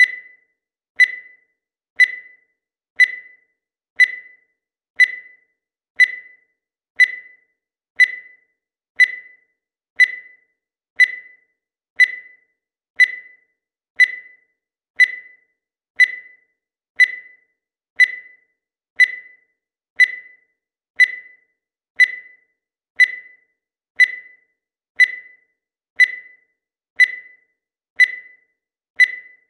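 Digital countdown timer beeping once a second: short, high electronic beeps, each one dying away quickly, marking off the seconds.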